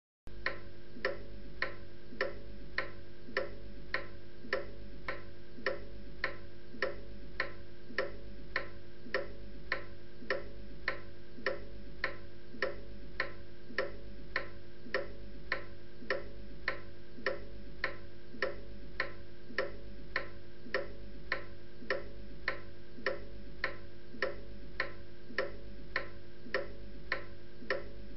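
Pendulum wall clock ticking steadily with regular, evenly spaced ticks over a faint steady hum.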